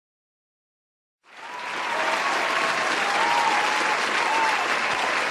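Silence, then a crowd applauding fades in about a second and a half in and holds steady, with faint voices calling out in the crowd.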